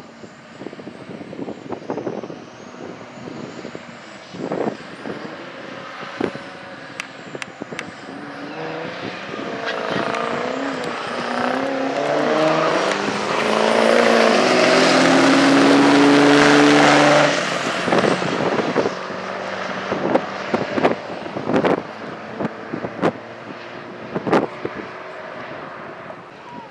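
Diesel pickup trucks making a drag-strip run: the engine note climbs steadily as they accelerate, growing loudest as they pass about 13 to 17 seconds in, then falling away down the track.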